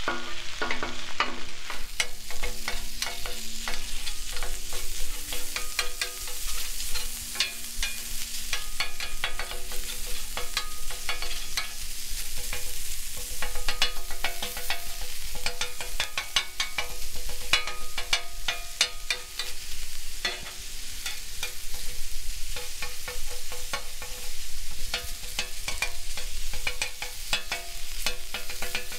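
Raw ground beef sizzling in oil on a hot Blackstone flat-top griddle as it is chopped apart and stirred, with frequent sharp clicks and scrapes against the steel cooktop over a continuous hiss. The meat is at the start of browning.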